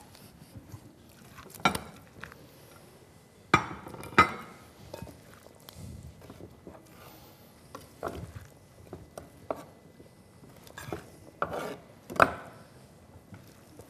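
A serving spoon clinking and scraping against a glass salad bowl and china plates as salad is scooped and served. There are scattered sharp clinks, the loudest about four seconds in and again near the end.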